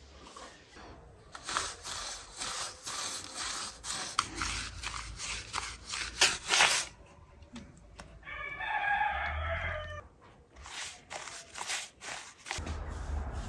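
Repeated rough strokes of a brush and hand rubbing wet cement mortar over a stone basin rim. About eight seconds in, a rooster crows once for about two seconds, then the strokes resume.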